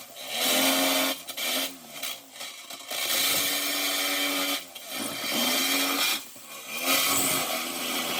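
Handheld power tool cutting into the ammo can for a vent hole, running in several bursts of a second or so, its whine sagging in pitch under load and then picking back up.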